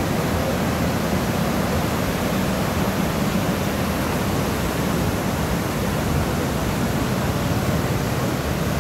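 Steady rushing of white water from the river cascades below.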